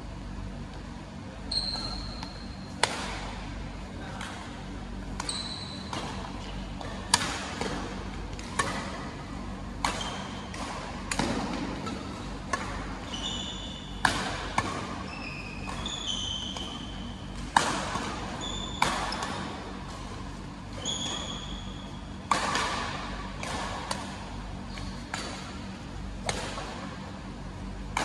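Doubles badminton rally: rackets strike the shuttlecock with sharp cracks every one to three seconds, with short high squeaks of shoes on the court floor between shots, over a steady low hum.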